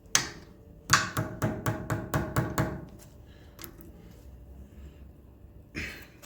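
A quick run of about eight sharp metal clicks over two seconds, then a single click and a short rustle near the end: pliers crimping a band clamp onto a CV-joint boot.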